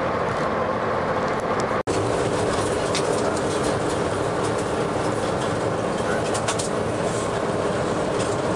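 Road vehicle driving on an unsealed gravel road, heard from inside the cabin: steady engine and tyre noise with a few short clicks and rattles. The sound cuts out for an instant about two seconds in.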